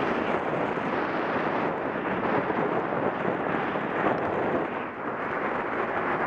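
Wind buffeting the microphone of a bicycle-mounted camera on a fast downhill ride, a loud steady rush that eases briefly about five seconds in.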